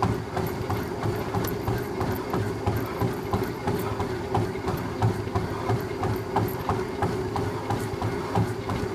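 Treadmill in use: a steady motor hum under a quick, even rhythm of running footfalls on the belt.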